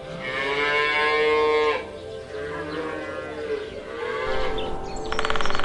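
Cattle mooing: one long, loud moo, then a second, weaker one. A short rapid rattle near the end is the loudest moment.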